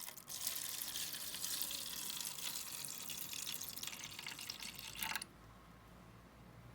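Water running, as from a tap, as a steady hiss that cuts off about five seconds in.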